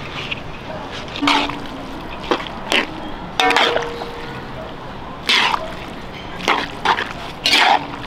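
A metal spatula scraping and tossing wet noodles in a large metal wok with a little broth. It comes as about eight short bursts of scraping and sloshing, some with a brief metallic ring.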